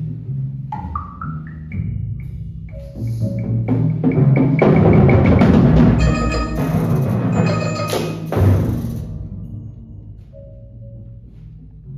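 Unpitched percussion ensemble playing drums and other struck percussion. It swells about four seconds in to a loud, dense passage with bright crashes, then thins out and fades over the last few seconds.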